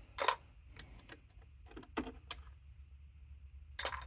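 Faint, scattered clicks and taps of small plastic parts being handled, about six over a few seconds with the loudest near the end: the black switch caps being pulled off a DJ mixer during disassembly.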